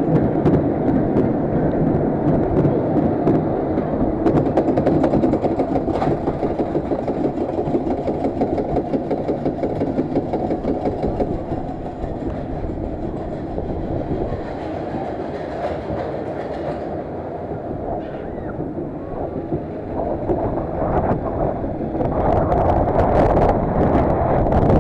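Fairground ride car running on its track, a steady rumble with clatter from the wheels, easing a little midway and building again near the end.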